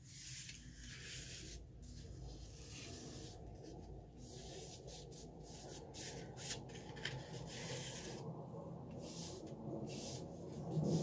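A black drawing stick scratching across textured, painted mixed media paper as outline lines are sketched: a dry, hissy scratching in irregular strokes, some short and some a second or more long.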